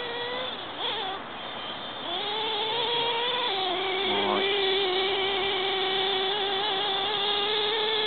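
Multiplex Blizzard RC plane's 1000 W brushless electric motor and propeller whining in flight. The pitch rises about two seconds in, drops about a second later, then holds steady.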